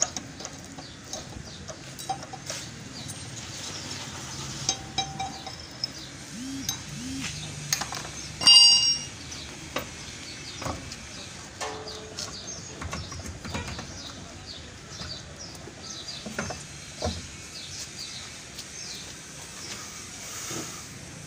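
Steel tools clinking and tapping on a truck's wheel hub and wheel nuts, with one loud ringing clang about eight seconds in. Birds chirp in the background.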